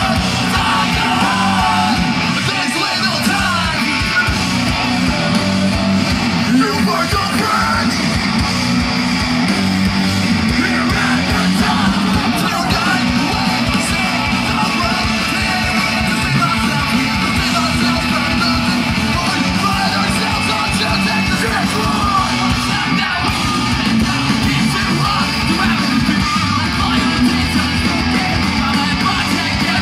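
Live pop-punk band playing through a loud outdoor PA: distorted electric guitars, drums and vocals, heard from within the crowd.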